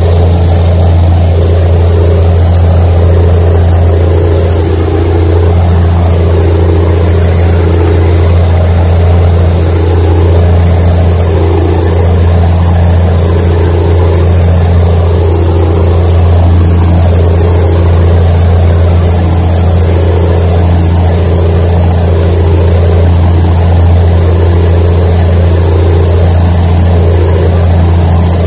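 A boat's engine running steadily under way, heard from on board as a loud, constant low drone with a regular swell about every two seconds.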